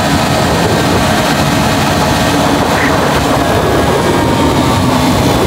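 Motorcycle cruising at about 105 km/h: a steady engine drone under a dense rush of wind noise, holding level throughout.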